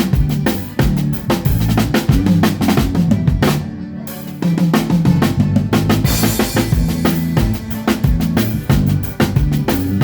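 A drum kit played in a steady groove with kick, snare and rimshot hits, over the low notes of other band instruments. There is a short break about three and a half seconds in, then the groove returns with a cymbal crash.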